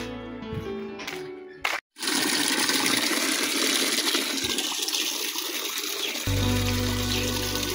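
Background music breaks off briefly just before two seconds in, then a steady rushing, water-like noise, with the music's bass coming back underneath after about six seconds.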